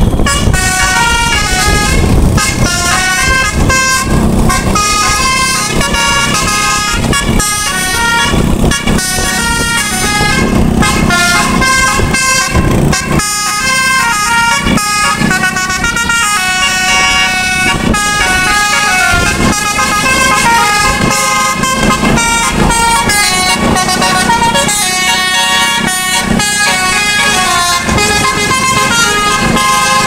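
Bus's multi-tone musical air horn (telolet) playing a continuous, quickly changing melody of stepping notes, loud, over motor scooter engines running.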